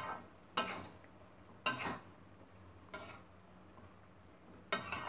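A spatula stirring cooked bottle gourd in a metal pan, scraping against the pan's side and bottom in five short strokes spaced unevenly about a second apart.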